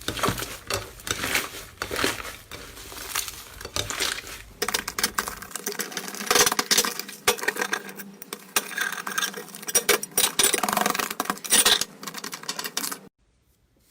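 Slime being squeezed, pressed and poked by hand, giving dense, irregular crackling, clicking and popping. The sound changes character about five and a half seconds in and stops abruptly near the end.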